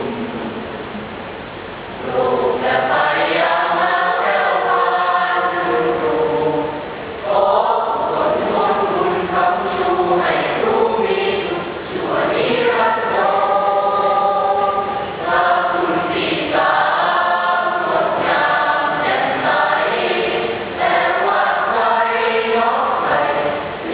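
School choir singing in several parts, in phrases of a few seconds each: softer at first, then entering more loudly about two seconds in.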